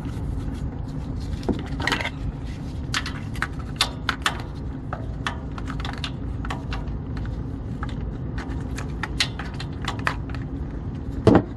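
Irregular small metallic clicks and clinks of a 15 mm wrench working the engine oil drain plug loose under the van.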